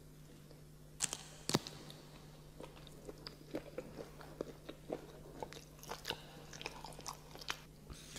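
Close-miked mukbang eating and mouth sounds: two sharp clicks about a second in, then a run of small irregular clicks and smacks as a roasted dog's head is handled and brought to the mouth.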